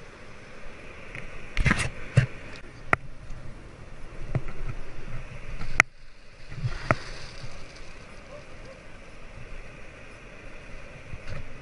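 A few sharp knocks and thumps, the loudest about halfway through, from a plastic kayak and its paddle being handled as it comes ashore on wet sand. Under them is a steady hiss of wind and shallow surf.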